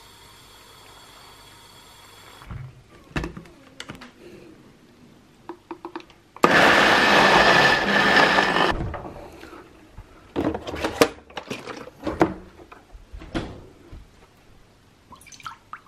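Tap water running into a plastic cup for about two seconds, then clicks and knocks of handling. About six seconds in, a WMF personal blender runs loudly for a little over two seconds and cuts off sharply, followed by more knocks and clatter of the jar and containers being handled.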